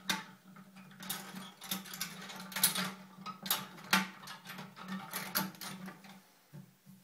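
Hands handling the plastic bidet plate and toilet-seat hinge fittings: irregular clicks, scrapes and rustles, over a steady low hum.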